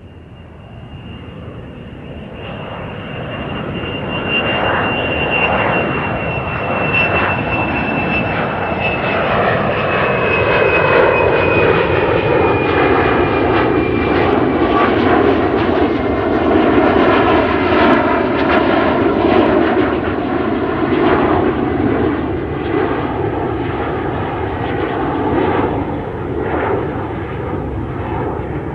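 Airplane engines passing close by: the noise swells over the first few seconds, with a high whine sliding slowly down in pitch, then settles into a loud, steady rushing noise.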